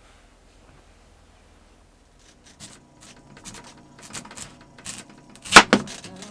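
Quiet at first, then a run of small clicks and knocks, with one loud sharp knock about five and a half seconds in.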